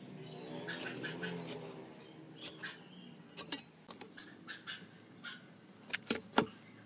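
Light taps and clicks of marking-out tools, a steel ruler, tape measure and pen, handled on a pine board and wooden workbench, with three sharp clicks close together near the end. In the first two seconds a faint, drawn-out wavering tone sits in the background.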